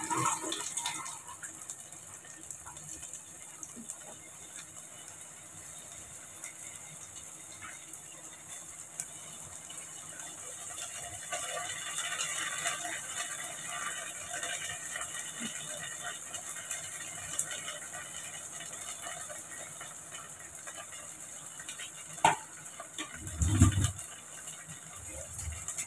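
Spice-and-besan-coated boiled taro (arbi) pieces frying in hot oil in a steel kadai, a sizzle that thickens about halfway through as more pieces go in. Near the end a sharp click and two dull thumps stand out.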